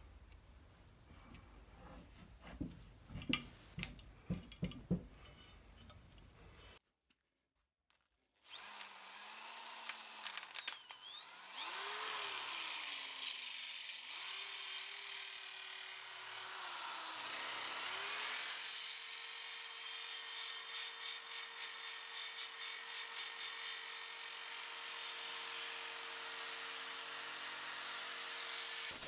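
A few knocks as the steel cleaver blade is handled at a bench vise. After a short break, a hand drill fitted with an abrasive disc grinds the flat of the blade. The motor's pitch wanders at first, then holds steady under load.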